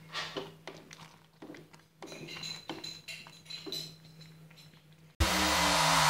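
A wooden spatula stirring and scraping meat sauce in a metal pan, in irregular strokes over a low steady hum. About five seconds in, loud electronic music cuts in abruptly.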